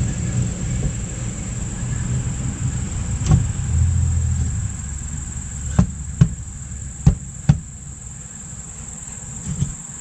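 Handling noise from working a truck tire and split-ring wheel by hand: a low rumble that dies away about five seconds in, and a handful of sharp knocks and clunks in the second half, over a steady high whine.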